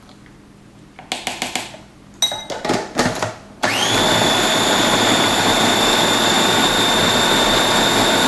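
Plastic clicks and knocks as the food processor's lid and feed-tube pusher are fitted. About four seconds in, the countertop food processor starts and runs steadily with a high motor whine, puréeing avocado, jalapeños, cilantro and garlic into guacamole.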